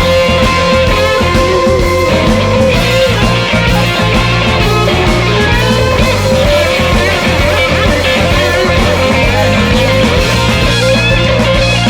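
Electric blues-rock band playing an instrumental break: an electric guitar plays a lead line of held, bending notes over bass guitar and drums.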